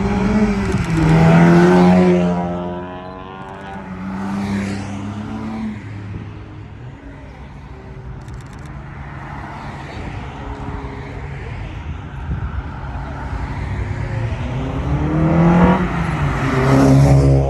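Cars driving past with engines revving: one loud pass about a second in, rising then falling in pitch, and another building up to a loud pass near the end, with quieter engine noise between.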